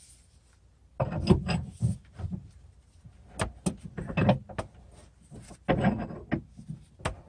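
Metal clanks, knocks and scrapes in three short bursts as a house jack under a floor beam is turned by hand, a couple of turns at a time, to lift a sagging floor; a single knock near the end.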